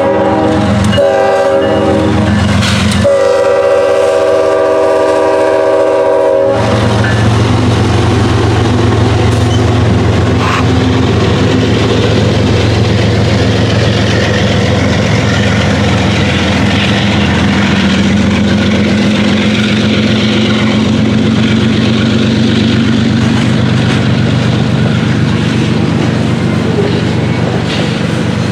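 Diesel freight locomotive's air horn blowing a short blast, then a long one that cuts off about six seconds in. After the horn, the locomotive's diesel engine drones steadily as the train rolls past.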